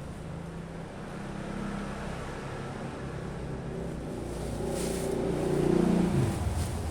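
Motor vehicle engine running nearby, growing louder to a peak about five to six seconds in, then dropping in pitch and fading as it passes.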